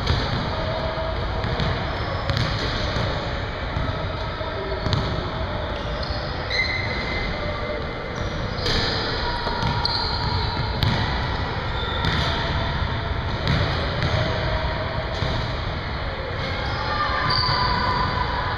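Basketballs bouncing on a hardwood gym floor and off the rim as jump shots are taken, a scatter of separate thuds throughout.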